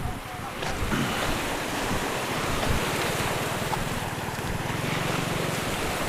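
Wind buffeting the microphone over sea waves washing onto the shore, a steady rushing noise.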